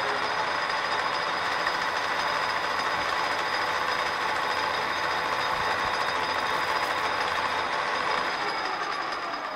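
Metal lathe running with a tool taking a facing cut across an aluminium workpiece: a steady machining sound with a few high whining tones, as the face is cut down until it cleans up.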